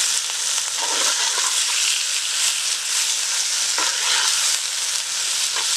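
Country chicken frying in oil in a cooking pot with a steady sizzle, stirred a few times with a ladle.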